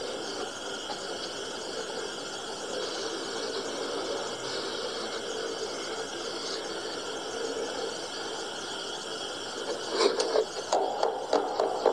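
A steady hiss of film-soundtrack background, then a quick run of sharp cracks and knocks starting about ten seconds in.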